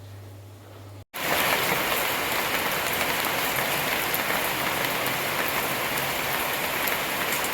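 Steady heavy rain falling, a dense even hiss that starts abruptly about a second in; before it there is only a low hum.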